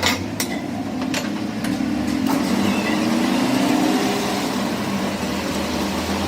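A steady motor or machine hum whose pitch drifts slowly, with a few sharp clicks or taps in the first couple of seconds.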